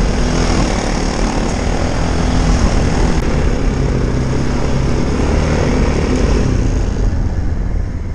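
Irbis Dingo T150 ATV's 150 cc single-cylinder engine running steadily as the quad is ridden through deep snow, its pitch wavering slightly with the throttle.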